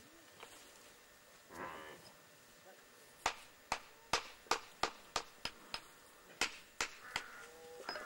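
Stone slab being struck during masonry work: about a dozen sharp knocks, two or three a second, beginning about three seconds in.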